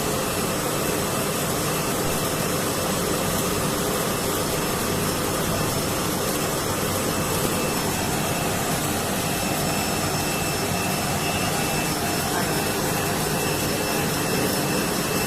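H-beam 3-in-1 welding machine running during a test weld: a steady, even machine noise with faint constant high whines over it.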